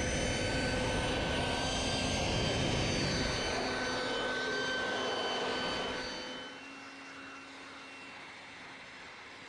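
Electric air blower drying a wet car, running steadily: rushing air with a constant high whine. It gets noticeably quieter about six seconds in but keeps running.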